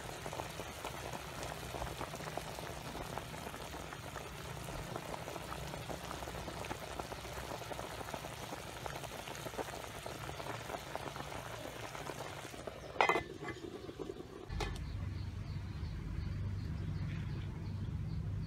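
Chicken and banana-flower soup boiling hard in a steel pot, a dense, steady bubbling. About two-thirds of the way through there is a sharp knock, and near the end the bubbling gives way to a steady low rumble.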